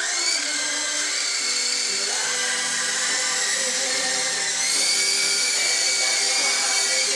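Small electric motors and rotors of a SYMA S032 radio-controlled helicopter whining steadily in flight. The whine steps up in pitch and loudness about four and a half seconds in as the throttle is opened.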